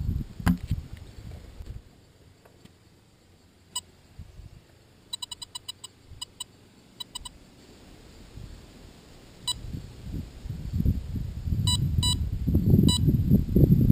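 Short electronic beeps: a quick run of about six in the middle, then scattered single and paired beeps. Gusty wind buffets the microphone, building over the last few seconds.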